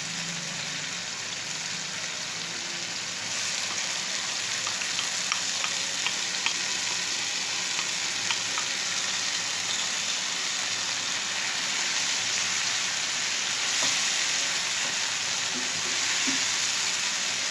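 Hot oil sizzling in a non-stick frying pan with ginger-garlic paste. About three seconds in the sizzle gets louder as marinated chicken pieces go into the oil, with a few light taps, and near the end the chicken is pushed around the pan.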